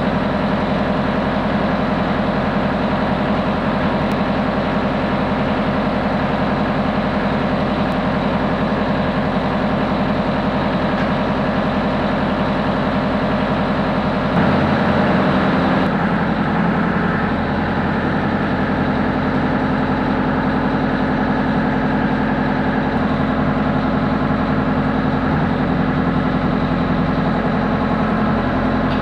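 Kubota LX3310 compact tractor's three-cylinder diesel engine idling steadily, briefly louder about halfway through.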